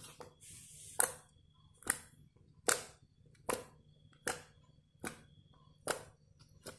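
Fingers poking and pressing green slime in a plastic tub, each poke making a short sticky pop, eight in a steady rhythm a little faster than once a second.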